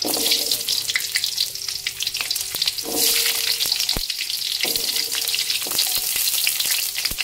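Whole garlic cloves and shallots sizzling and crackling as they shallow-fry in hot cooking oil in a wok, with the sizzle swelling about three seconds in. A few sharp clicks cut through it.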